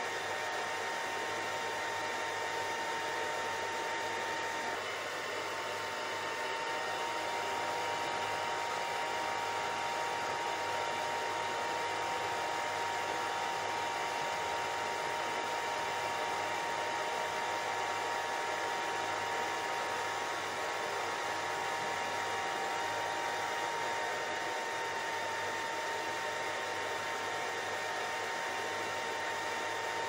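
Steady white noise: an even, constant hiss with a faint, steady high tone running through it.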